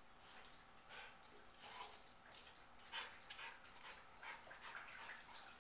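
Two dogs playing, heard faintly: scuffling and light clicks on a tile floor, with a short whimper.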